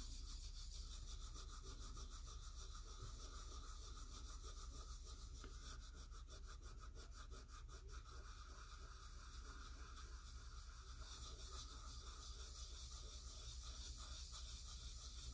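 Fingertips rubbing gold gilding flakes onto card stock: a faint, steady papery rubbing, with a run of quicker strokes in the middle.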